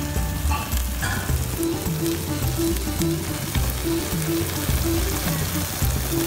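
Claypot chicken rice sizzling and crackling on the heat. Background music plays under it, a short note repeating about twice a second over a bass line.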